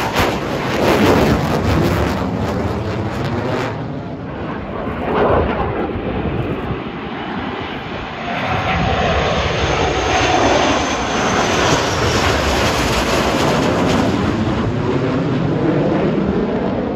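Jet engines of Blue Angels F/A-18 Super Hornets flying overhead: a continuous loud jet roar that ebbs and swells as the aircraft pass. It is quieter about four and eight seconds in, then louder and steady through the second half as the four-jet diamond formation comes over.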